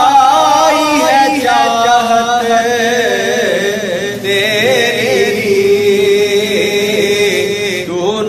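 A man singing a naat (Islamic devotional poem) solo, drawing out long, wavering, ornamented notes; from about four seconds in he holds one lower note until a brief break near the end.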